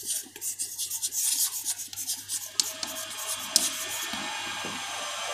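Chalk writing on a blackboard: quick scratchy strokes as a name is written out. About halfway through, a steady hiss comes in under the strokes.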